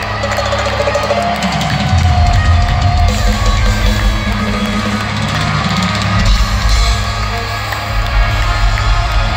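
Heavy metal band playing live in an arena, the drum kit and bass drum prominent under the guitars, recorded from among the audience.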